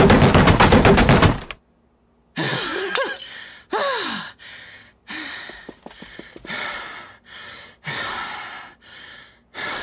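A hammer pounding very fast in a rapid string of blows that stops suddenly about a second and a half in. After a short silence comes a run of heavy, breathy panting gasps with short falling groans.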